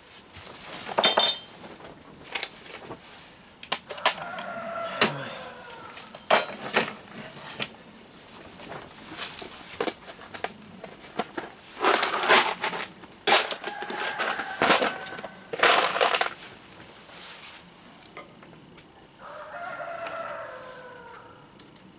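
Clinks and knocks of metal hardware and tools being handled on a wooden workbench. A rooster crows twice in the background, about four seconds in and again near the end, each call falling in pitch as it trails off.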